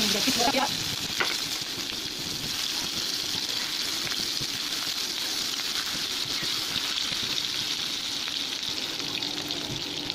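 Shami kebabs, patties of minced meat and chana dal, frying in hot oil in a non-stick pan: a steady, even sizzle.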